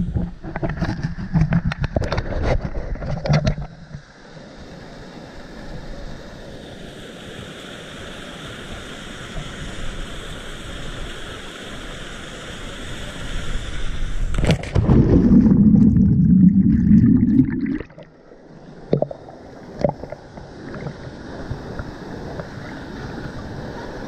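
Water splashing and rushing, with knocks on the microphone in the first few seconds. About fourteen seconds in comes a sudden plunge into the water: a sharp splash and then about three seconds of loud, low underwater churning that cuts off abruptly, followed by two short knocks and a quieter rush of water.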